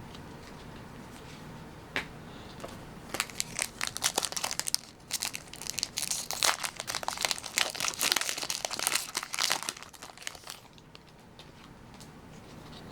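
Pokémon card booster pack wrapper crinkling and being torn open, in a dense run of crackles from about three seconds in until about ten seconds in, after a single click.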